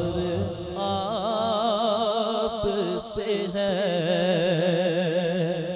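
A man singing a naat, holding long wavering notes with vibrato into a microphone, with a short break about three seconds in.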